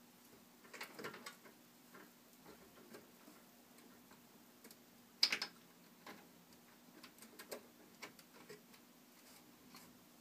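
Small clicks and taps of plastic connectors and cables being handled inside an open PC case as the CPU fan's cable is plugged into the motherboard, with one sharper click about five seconds in.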